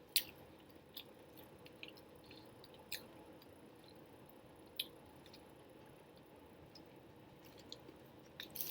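A person chewing food with the mouth close to the microphone, with a few short wet smacks or clicks spaced a second or two apart.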